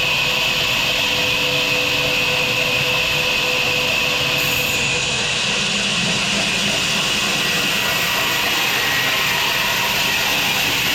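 Sawmill machinery running steadily: an even, unbroken mechanical noise with a high hiss over a low hum.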